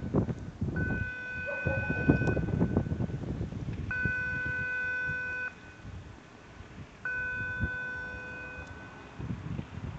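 Electronic warning signal of a harbour footbridge sounding three long, steady beeps, each about a second and a half with a pause of the same length between, over wind buffeting the microphone.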